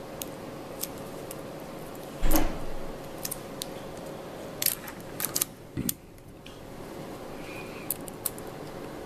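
Scattered light clicks and taps of small metal tools and parts being handled at an electronics workbench, with one louder knock about two seconds in and a cluster of clicks past the middle. A faint steady hum sits underneath.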